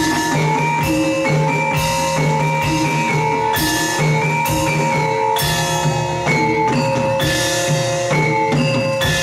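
Live gamelan ensemble playing: bronze metallophones strike steady, repeating patterns of notes, with a drum kit and a cymbal crash roughly once a second.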